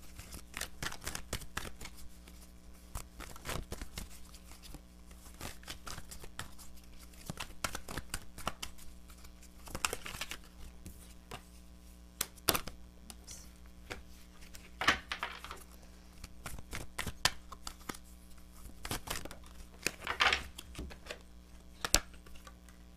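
A tarot deck being shuffled by hand: a long run of soft card clicks and slaps, with a few longer riffling bursts.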